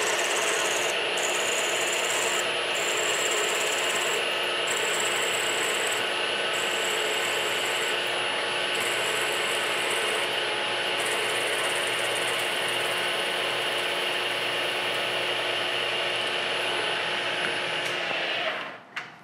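A milling machine spindle runs steadily while a drill counter-drills a tapped hole in a metal block, over a constant hum and the hiss of cutting. The sound drops away about 18 seconds in as the drill is withdrawn, followed by a short click.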